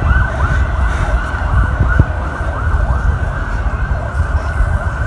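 A siren with a fast rising-and-falling yelp, about two and a half sweeps a second, over wind rumble on the microphone.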